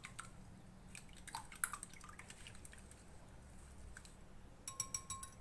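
Milk being poured into a bowl of beaten eggs: faint liquid dripping with a few light clicks, then a quick run of light clicks near the end.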